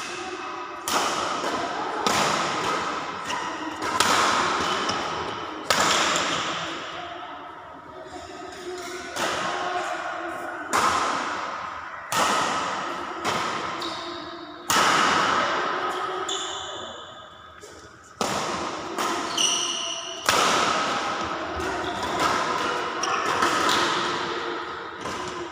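Badminton rackets striking a shuttlecock during a rally, sharp hits every second or two, each ringing out in the hall's long echo. A few short high squeaks from shoes on the court floor come near the middle.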